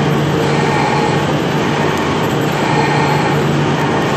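Lathe trepanning a 250 mm bar with a carbide-tipped 230 mm trepanning tool: a steady, unbroken cutting noise over the machine's hum, holding a low tone and a higher whine throughout.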